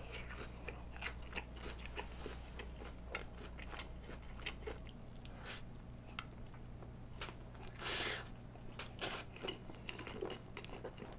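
Close-miked chewing and biting into sauce-glazed fried chicken: a run of small sharp crunches and clicks, with one longer, louder noise about eight seconds in.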